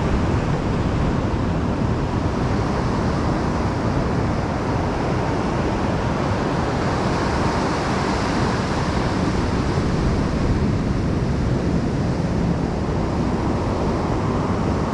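Ocean surf breaking and washing up a sandy beach, a steady rush of noise, with wind rumbling on the microphone.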